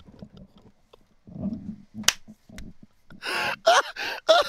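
A man laughing hard in short, quickly repeated bursts, starting about three seconds in after a quiet stretch with a faint murmur and a single click.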